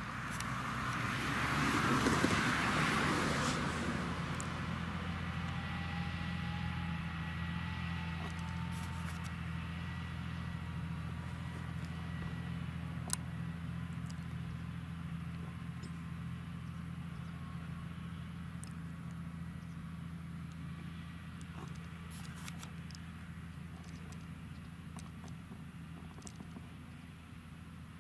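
Fendt Vario tractor pulling a slurry tanker, its diesel engine running with a steady low drone. The sound is loudest about two seconds in as the rig passes closest, then fades slowly as it moves away.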